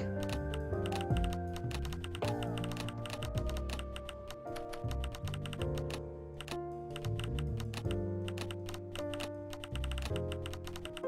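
Instrumental music with a bass line and held melody notes, overlaid with a fast run of sharp clicks like keyboard typing.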